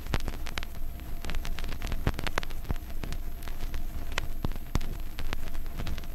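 Vinyl LP surface noise in the silent groove between two tracks: irregular crackles and pops, a few of them sharper, over a steady low rumble.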